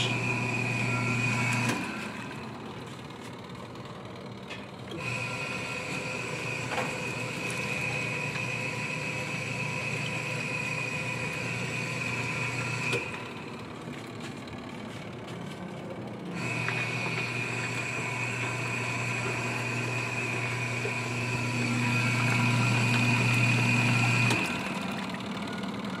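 Electrolux top-loading washing machine, converted to run on an added timer, with its motor humming with a high whine as it agitates a load of washing. The motor runs about eight seconds at a time and stops for about three to four seconds in between, cutting out three times.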